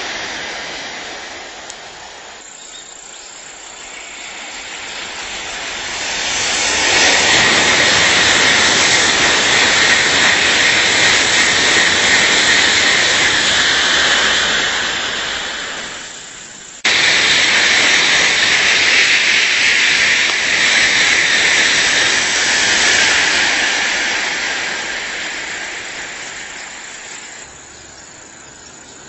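Tokaido Shinkansen high-speed train passing at speed, a loud rushing noise that swells over a few seconds, holds, then falls away. Just after it dies down, the rushing cuts back in abruptly at full level and fades out slowly toward the end.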